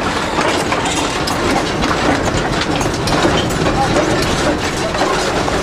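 Steam locomotive running, heard from inside its cab: a loud, steady din of rattling machinery and wheels running over the rails.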